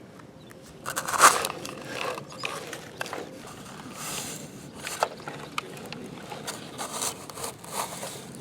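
Toy digger being worked by hand in dirt: irregular clicking of its moving parts and scraping of the bucket, the loudest scrape about a second in, with sharp clicks scattered after.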